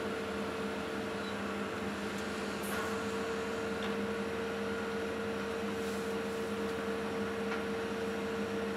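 Excavator engine and hydraulics running steadily under load as the boom raises a full bucket, heard from inside the cab as an even drone with a steady two-note hum. A few faint clicks sound over it.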